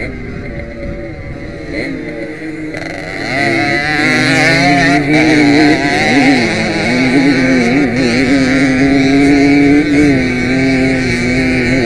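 Jawa 50 Pionýr ("Fichtl") racing moped's single-cylinder two-stroke engine, heard on board while riding a dirt track. It is quieter at lower revs for the first few seconds, then revs up about three seconds in and holds high revs with the pitch wavering as the throttle is worked.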